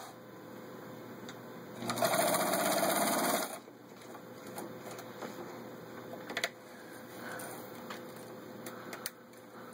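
Necchi Supernova Ultra sewing machine running at speed, stitching through six layers of denim in one fast burst of about a second and a half, about two seconds in. Afterwards a few light clicks as the fabric and machine are handled.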